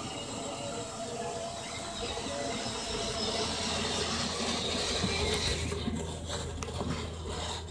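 Battery-powered ride-on toy Jeep's small electric motor and gearbox whining steadily as it drives over the grass, over a steady outdoor hiss, with a few light knocks near the end.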